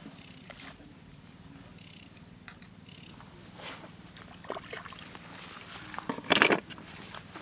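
Rustling of grass and small splashy handling noises as hands pick snails at the water's edge, with a louder rustle-and-knock about six seconds in, over a low steady buzz.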